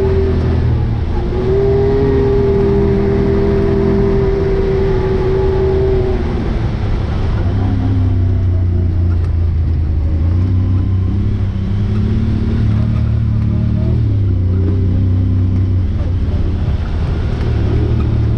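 Side-by-side UTV engine running under varying throttle. It holds a steady pitch for a few seconds, then drops lower after about six seconds and rises and falls with the throttle.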